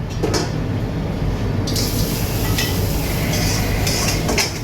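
Steady low rumble with a few short hisses and clinks over it.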